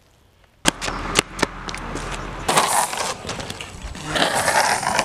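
Longboard on asphalt: the wheels start rolling suddenly about half a second in, with a few sharp clacks in the first second, then a steady rolling hiss and rumble with louder noisy stretches later on.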